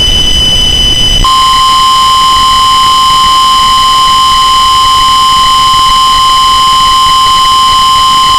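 Emergency alert tones: a steady high tone over a loud rushing noise. About a second in, a steady single-pitch alert tone comes in and holds, the long warning alarm tone that comes before an EAS/NOAA Weather Radio tornado warning message.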